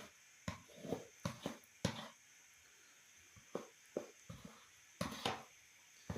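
About a dozen irregular sharp knocks and scrapes, typical of a wooden cooking stick striking and working against a metal pot while stiff ugali is stirred.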